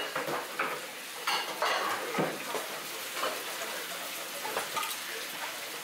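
Chopsticks stirring and clinking against ceramic ramen bowls, with bowls knocking on a stainless steel counter a few times, over a steady kitchen hiss.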